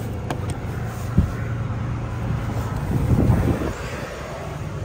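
Wind buffeting the microphone over a steady low engine rumble at an open truck cab door, gusting stronger past the middle; a single low knock about a second in.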